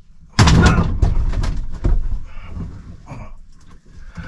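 Handling and movement noises on a boat: a sudden loud rustle about half a second in, then a scatter of knocks and rustles that die down, as a person picks up a freshly caught carp.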